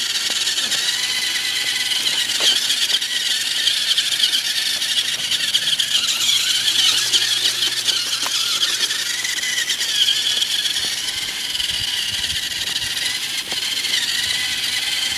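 Toy RC rock crawler truck's small electric motor and gearbox whining steadily as it drives, a high wavering whine that rises and dips as it works over bumps.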